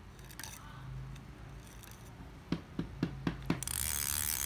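Ryobi spinning fishing reel being worked by hand: a run of about five sharp clicks around two and a half to three and a half seconds in, then the handle is cranked and the rotor and gears whir steadily.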